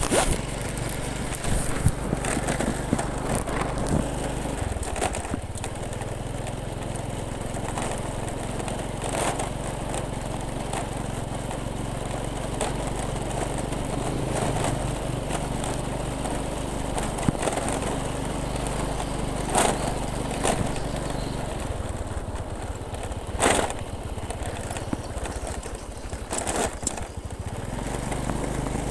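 Small motorcycle engine running at a steady speed, with its pitch changing a few times, and occasional sharp clicks and knocks.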